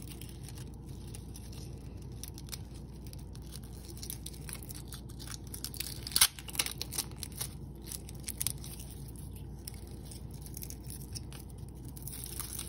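Clear plastic wrap being peeled and crinkled by fingers off a wooden fingerboard deck: scattered small crackles and rustles, with one sharp crackle about six seconds in.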